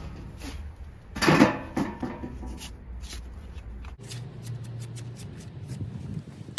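A rag rubbing and scraping inside the bore of a rusty steering knuckle as it is wiped clean, with a louder knock about a second in and small clicks later on.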